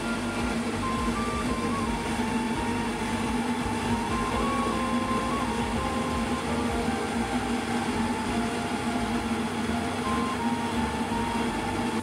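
Self-service rice-milling machine running steadily, its motor humming under the rushing noise of brown rice being milled and the bran stripped off.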